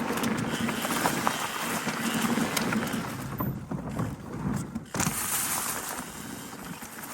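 Electric mountain bike ridden along a forest trail: knobby tyres rolling and crunching over dirt, with small rattles and knocks from the bike and wind on the microphone. The hiss eases for a moment about halfway through.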